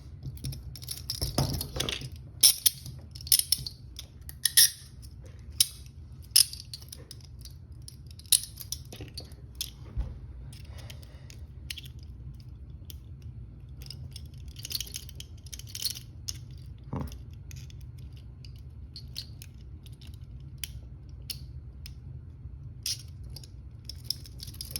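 Metal clicks and clinks of a handcuff being picked, the pick working in the keyhole and the cuff and chain rattling, in irregular bursts. A steady low hum runs underneath.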